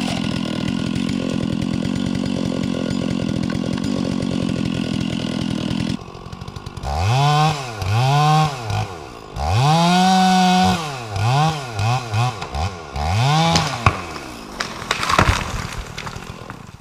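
Gas chainsaw held at full throttle, cutting a back cut through a pine trunk. About six seconds in the steady sound drops away, and the engine then revs up and down over and over. A couple of sharp cracks come near the end.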